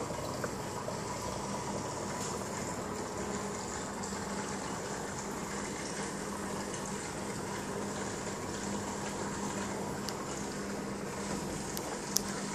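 Aquarium filter and pump circulating water: a steady watery wash with a low steady hum, and a couple of sharp clicks near the end.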